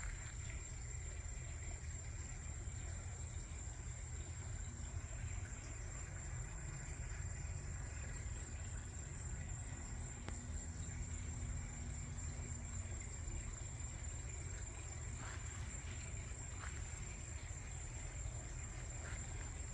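Night-time outdoor ambience: crickets trilling in one continuous high, steady tone over a faint low rumble. There is no thunder.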